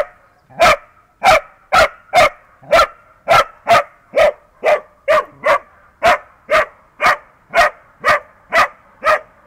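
Dachshund barking over and over at a badger, short sharp barks at an even pace of about two a second.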